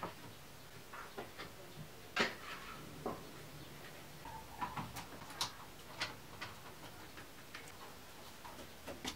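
Plywood strips knocking and clacking against each other as they are stacked into a pile, in scattered irregular taps, the sharpest about two seconds in. Near the end come a few handling clicks as the bar clamps are tightened.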